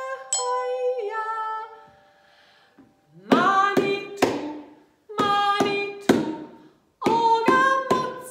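A woman sings over a few glockenspiel notes, then after a short pause beats a rhythm with her bare hands on an upturned plastic bowl used as a drum, in groups of two to four sharp slaps, with her singing voice carried over the strikes.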